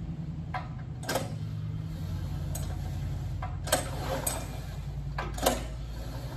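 Portable generator's small engine running with a steady low hum, with a few sharp clicks and knocks over it.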